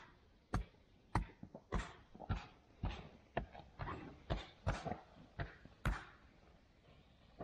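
Footsteps at a steady walking pace, just under two steps a second, each a short crunchy scuff, stopping about six seconds in.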